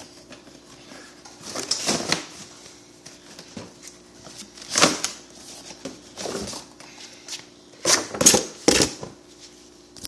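Packaging rustling and crinkling in short bursts as the RC car is pulled free of its package and handled, with the loudest cluster near the end.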